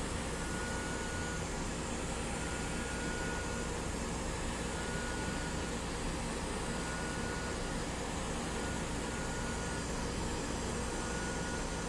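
Hot air rework station blowing a steady stream of hot air at a circuit board to melt the solder under a part. A faint high tone pulses about every two seconds.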